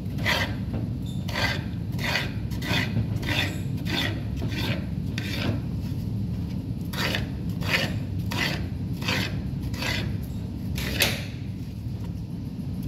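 A kitchen knife slicing a red capia pepper into thin strips on a wooden cutting board: a short rasping stroke roughly every half second to two-thirds of a second, with a pause about halfway through and a last stroke near the end. A steady low hum runs underneath.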